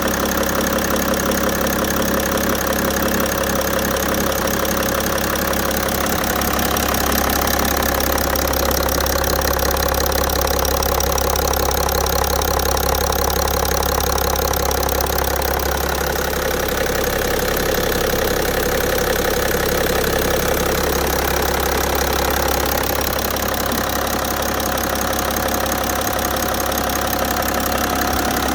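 BMW E60 530d's M57 3.0-litre straight-six turbodiesel idling steadily with a repeated knock, which the owner takes for a sign that something is wrong with the engine.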